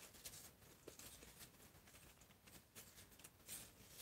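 Near silence: room tone with faint, scattered rustles and ticks.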